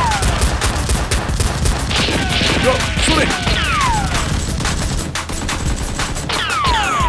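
Rapid gunfire sound effects, like automatic rifles firing long bursts, dubbed over toy Nerf blasters. Falling, whistling whizzes are heard about halfway through and again near the end.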